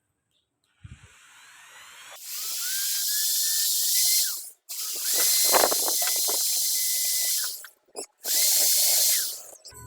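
Homemade table saw's circular saw running in three spells, separated by abrupt breaks. Each spell starts with a rising whine as the blade spins up to a steady high pitch, with a loud hiss of blade noise.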